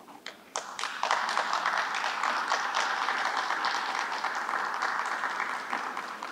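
Audience applauding: a few scattered claps at first, then steady applause from about a second in, tapering off near the end.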